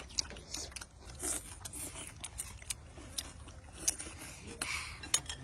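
Someone chewing and eating food close by, with scattered small crunches and clicks.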